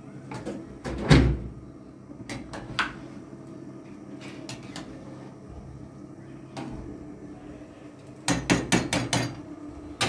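Metal ladle knocking and clinking against an aluminium cooking pot while stirring: one heavy knock about a second in, a few scattered clinks, then a quick run of about six taps near the end, over a low steady hum.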